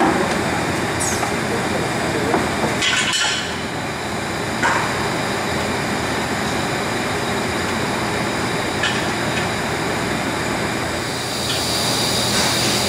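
Automated induction brazing machine running: a steady mechanical din broken by several short, sharp sounds, with a thin high tone coming in near the end.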